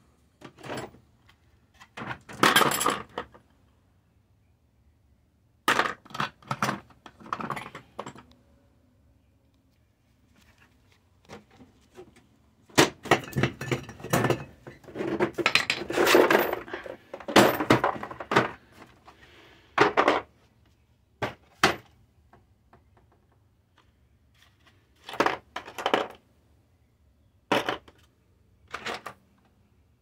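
Metal sockets and hand tools clinking and rattling as they are rummaged through, in short separate bursts with a longer run of clatter in the middle.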